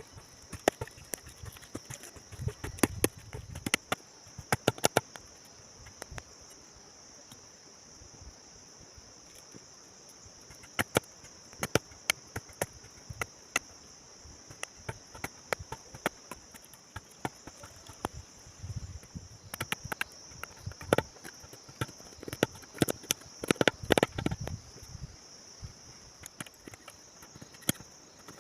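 Steady high insect trilling, like crickets, with irregular sharp clicks and knocks coming in clusters, loudest about two to five seconds in and again from about nineteen to twenty-five seconds in.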